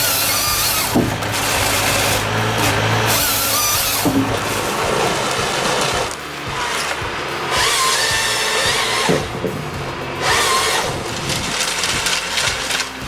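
The saw of a Hypro log processor cutting through logs in several bursts, its whine rising and falling as it works.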